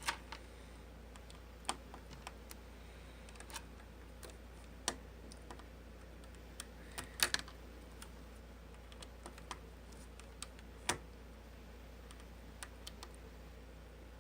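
Irregular small clicks and taps of a screwdriver and loose screws being handled against a laptop's plastic case during disassembly, with a little cluster of louder clicks about halfway through.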